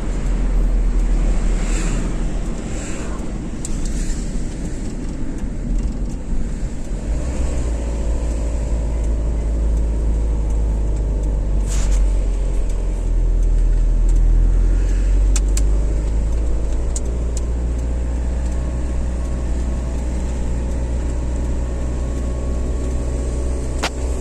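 Car driving on a highway: a steady low rumble of engine and road noise. About seven seconds in the rumble settles into a steadier low drone, with a few faint clicks scattered through it.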